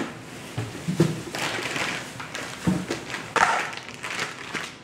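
Household handling sounds: several knocks and thuds, with bursts of plastic-bag rustling, as groceries are taken out and put away in kitchen cabinets.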